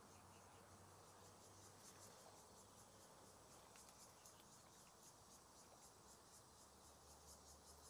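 Near silence: faint outdoor background hiss.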